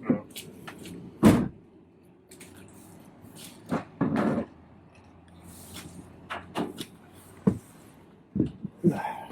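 Scattered knocks and clunks, the loudest about a second in, as a portable propane water heater is handled and hung on a door.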